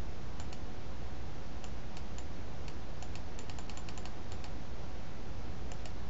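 Computer keyboard keys tapped in scattered clicks, bunched in a quick run near the middle, over a steady low hum and hiss.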